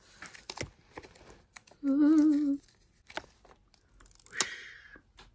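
A woman hums one short, slightly wavering note for under a second, about two seconds in. Around it are small clicks and a papery crackle of a sticker being peeled off its backing, the sharpest about four seconds in.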